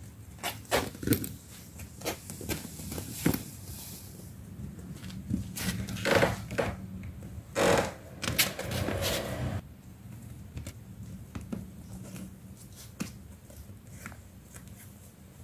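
Kittens scrambling and wrestling on crinkly puppy training pads, making irregular rustles, scratches and taps, busiest in the first ten seconds with a longer scuffle near the middle.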